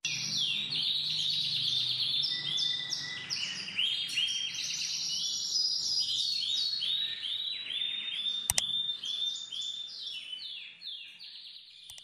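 Canary singing: long runs of quick, rapidly repeated chirping notes, with a sharp click about eight and a half seconds in. The song fades away near the end.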